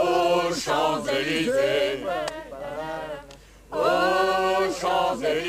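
A small group of men and women singing a French song together, unaccompanied, with long held notes; the singing drops off briefly about three seconds in, then comes back loudly.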